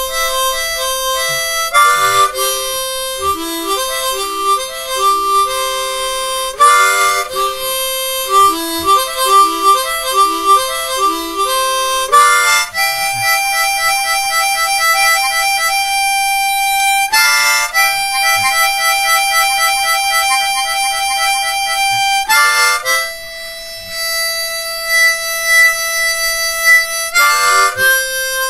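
Solo harmonica, cupped in both hands, playing a slow tune of notes and chords. It plays quick repeated and changing notes in the first half and long held chords in the second, with a short break between phrases every five seconds or so.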